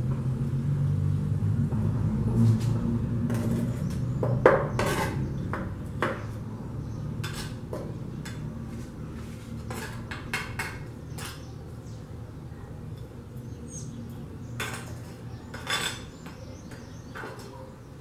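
A small hand trowel scraping and scooping potting soil in a planter, with irregular scrapes and clinks, the loudest a few seconds in and again near the end. A low rumble underlies the first few seconds.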